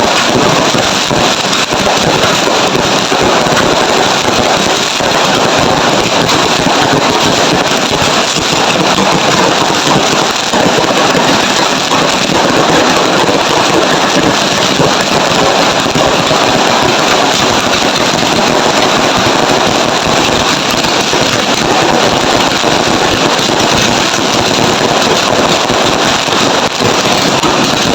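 Fireworks and firecrackers crackling continuously in a dense, loud stream, with no single big bang standing out.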